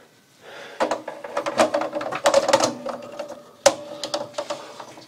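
Rapid clicking and rattling of wires and a plastic circuit breaker being handled and fitted inside a metal breaker panel, with one sharp click about three and a half seconds in.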